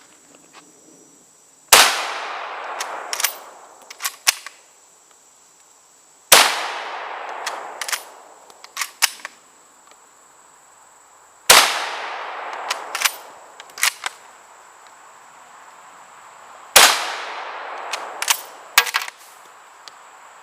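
6.5mm Arisaka bolt-action rifle fired four times, about five seconds apart, each shot ringing out and followed by a few short metallic clicks of the bolt being worked.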